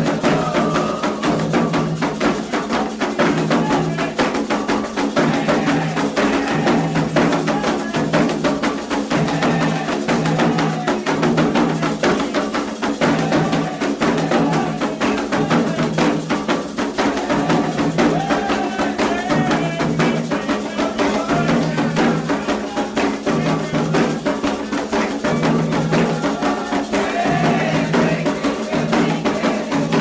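Candomblé ritual drumming for a rum of Iansã in the Angola nation: atabaque drums beat a fast, steady, repeating rhythm with a high clacking percussion part, and voices sing over it.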